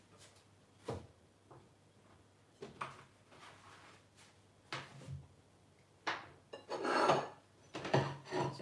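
Kitchen handling sounds: scattered light knocks and clinks of a knife and glass plates on the counter, with a longer stretch of rustling from about six seconds in.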